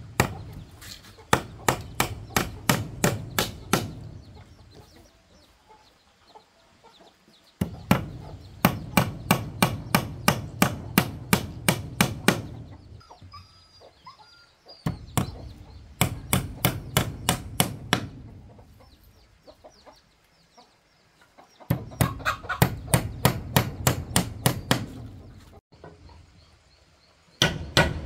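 Rapid runs of blows with a hand tool on wood, a few strokes a second, each run lasting about four seconds with short pauses between, as in hammering or chopping. Chickens clucking faintly.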